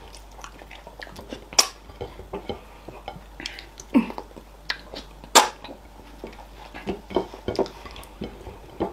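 Close-miked eating by hand: irregular wet smacks and clicks of lips, chewing and fingers working fufu in okra soup, with two sharper smacks about a second and a half and five and a half seconds in.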